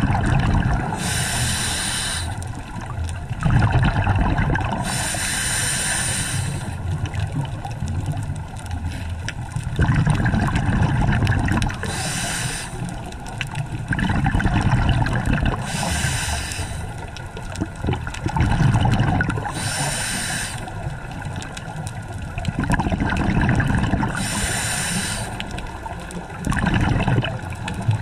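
Scuba diver breathing through a regulator underwater: a low rasping inhale, then a bubbling rush of exhaled air, about six breaths.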